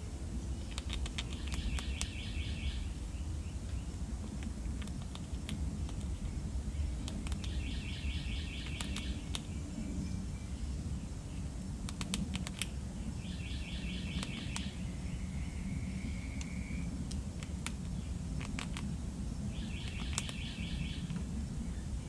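Gray squirrel gnawing kernels off a dried corn cob: scattered crisp clicks and crunches. A bird repeats a short trill four times, about six seconds apart, over a steady low outdoor rumble.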